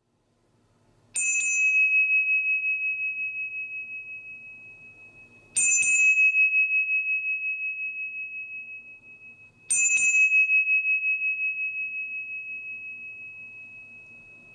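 A small temple bell struck three times, about four seconds apart; each stroke rings on as one high tone that fades slowly with a gentle pulsing waver.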